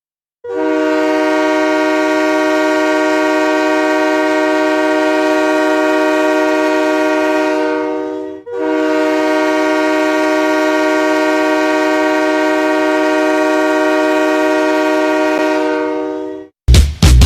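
The Erie Panthers' 2003 MSHL goal horn, a multi-tone air horn sounding a chord, blowing two long blasts of about eight seconds each, with a short break between them. Loud rock music cuts in right after the second blast, near the end.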